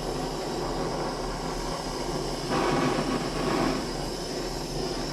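Gas torch flame burning with a steady rushing hiss as it heats a cast iron part, getting louder for about a second partway through.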